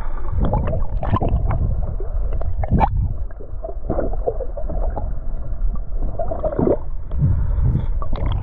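Muffled underwater sound of lake water heard by a submerged camera: gurgling and sloshing over a low rumble, broken by irregular dull knocks and a few wavering, warbling sounds.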